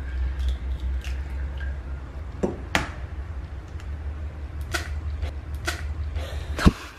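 Hen's eggs being cracked by hand over a glass bowl: scattered sharp cracks and clicks of shell, with the wet slip of egg into the bowl, the loudest crack near the end. A steady low hum runs underneath.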